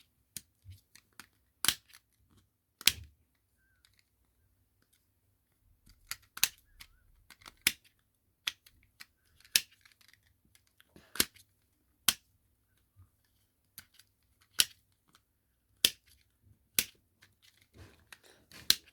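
A plastic twist puzzle ball being turned by hand, its segments giving off sharp, irregular clicks every second or so as they snap into place.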